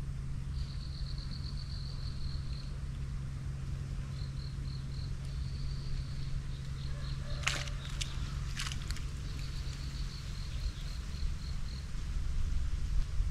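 Insects chirping in short, even trills of high pulses, over a steady low hum that stops near the end. Two sharp clicks sound about halfway through.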